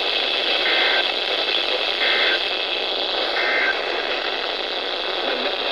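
Three short Emergency Alert System end-of-message data bursts, each a brief two-tone warble, about a second apart, over steady weather-radio static hiss. They mark the end of a NOAA Weather Radio warning broadcast.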